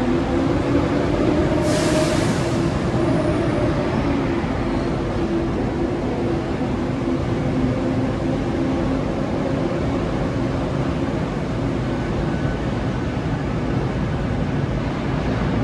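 Athens Metro Line 2 electric train pulling out of an underground station platform: wheels running on the rails under a steady electric motor tone. A short burst of air hiss comes about two seconds in.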